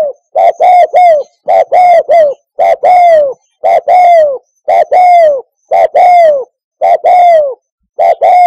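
Spotted dove cooing: a run of about eight loud phrases, one roughly every second, each a few quick coos ending in a longer coo that falls in pitch.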